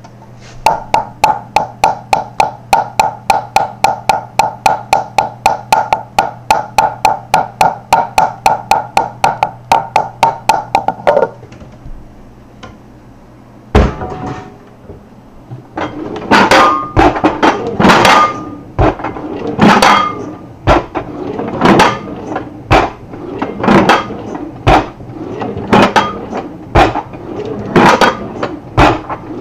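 Knocking in a house. A fast, even run of knocks, about four a second and each with a short ringing tone, stops suddenly after about eleven seconds. After a pause comes one hard knock, then a slower, irregular run of louder bangs with some ringing.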